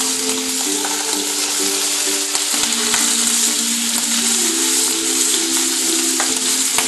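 A tied meat roast sizzling steadily as it sears in hot oil in a frying pan, with background music playing a slow melody over it.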